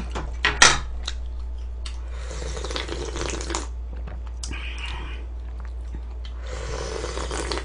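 Close-up eating sounds: a few clicks of the ladle and tongs against the bowl at the start, then two long wet sucking, slurping stretches as meat is pulled off a pork neck bone from the soup. A steady low hum runs underneath.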